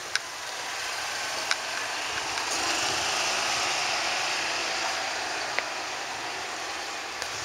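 Outdoor rushing noise that swells and fades over a few seconds, with a few faint footstep clicks.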